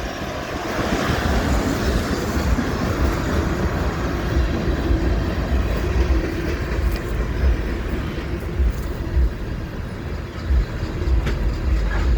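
The last cars of a freight train rolling past, a continuous rumble of wheels on rail with a few sharp clicks near the end.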